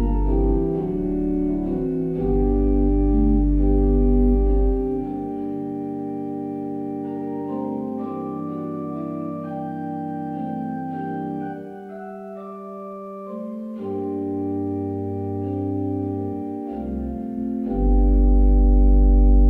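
Organ playing a slow prelude of held chords with deep bass notes, the chords changing every second or two. It grows softer about two-thirds of the way through, with the bass dropping out, then swells louder with a deep bass near the end.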